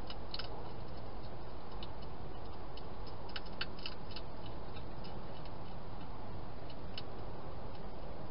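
Wild hedgehog chewing food: irregular short, sharp clicks, most of them in a cluster about three to four seconds in, over a steady hiss.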